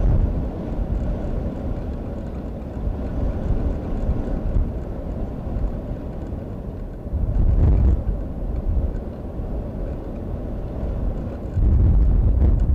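Wind buffeting an outdoor nest-camera microphone: a continuous low rumble that grows stronger in gusts about seven seconds in and again near the end.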